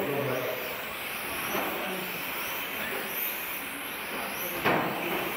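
1/10-scale electric RC touring cars with 17.5-turn brushless motors racing, giving a steady high-pitched whine of motors and tyres. A sharp knock comes about four and a half seconds in.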